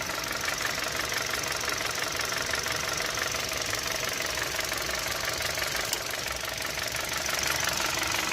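Hyundai i20 engine running with a steady rattling tick, the chain-like noise of a stretched timing chain and a failing chain tensioner, as the mechanic diagnoses it.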